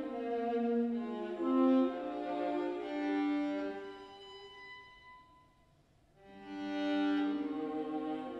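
Solo viola played with the bow: slow, sustained notes. A phrase fades almost away about five seconds in, and a new phrase swells in about a second later.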